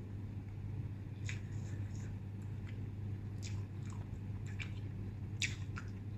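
A person chewing and biting into instant noodles and a slice of luncheon meat close to the microphone, with short clicks scattered through and the sharpest about five and a half seconds in, over a steady low hum.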